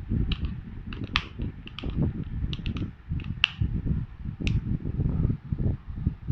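Light plastic clicks and taps, about a dozen of them, the loudest just over a second in and about three and a half seconds in, from handling a spray cleaner bottle and opening its cap, over a steady low rumble of the phone being held and moved.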